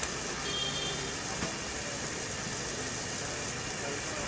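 Steady roar of a gas burner under a wok, with the broth around a freshly added block of instant noodles simmering.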